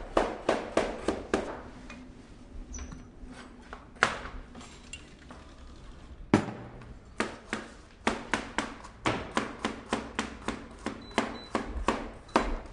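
Chef's knife slicing carrots into thin rounds on a cutting board: quick, even knocks of the blade hitting the board, about four a second. The knocks break off for a few seconds in the middle, leaving only a couple of single knocks, then resume.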